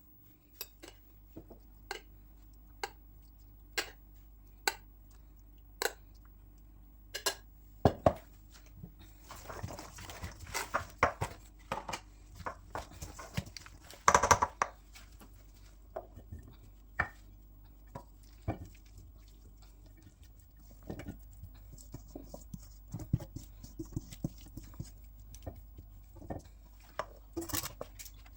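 Kitchen work with dishes and utensils: sharp single clicks and knocks about once a second, then a few seconds of denser clattering about a third of the way in, then scattered lighter taps.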